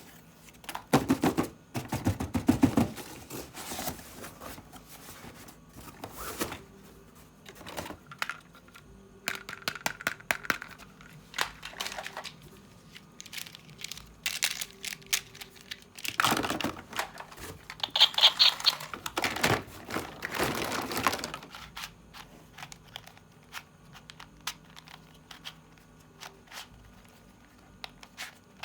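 Toy packaging being handled and opened by hand: crinkling and tearing, with many small clicks and taps. The handling comes in two busier stretches, one about a second in and one past the middle.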